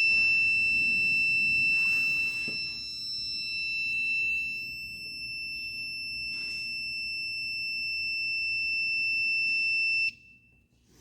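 Air compressor controller's alarm buzzer sounding one steady high-pitched tone, which cuts off suddenly about ten seconds in. The alarm signals a three-phase supply fault on the compressor.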